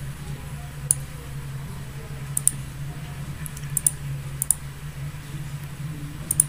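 Computer mouse clicking about five times, several of them quick double clicks, over a steady low hum.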